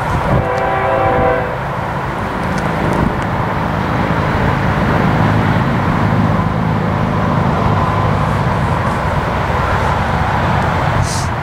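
A distant train horn sounds one short, several-note chord near the start, then a steady low rumble from the unseen train continues.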